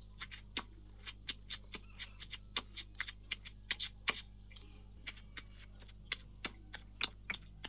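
Pestle pounding cooked fish and yellow spice paste in a stone mortar: a quick, uneven run of short knocks, about three a second.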